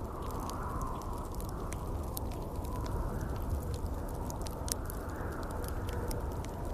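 Wood fire crackling with many scattered sharp pops, over a steady rush of storm wind that swells gently now and then.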